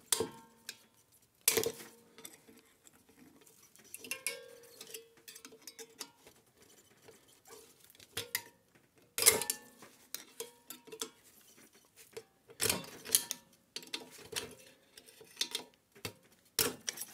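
Irregular metal clinks and knocks as tools and the steel parts of an opened refrigerator compressor are handled, some ringing briefly. The loudest knocks come about a second and a half in, about nine seconds in and about thirteen seconds in. No grinder runs.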